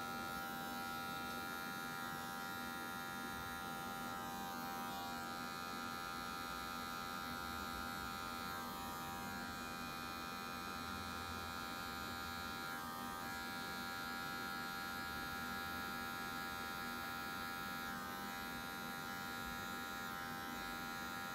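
Electric hair clipper running with a steady buzz as it cuts a fade into short hair. Its tone shifts slightly every few seconds as the blade is worked up through the hair.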